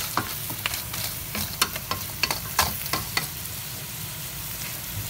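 Crab pieces, sausage and garlic sizzling in a hot stainless-steel wok while being stirred with a wooden spoon. Knocks and scrapes of the stirring run for about three seconds, then a steady sizzle is left on its own.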